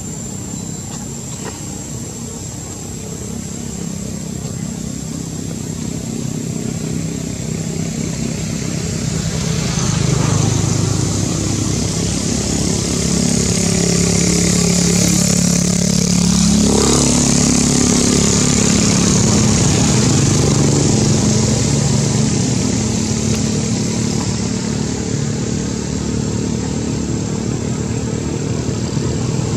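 Motorcycle engine running close by, its hum growing louder about a third of the way in and easing off near the end. A thin, steady high-pitched whine runs throughout.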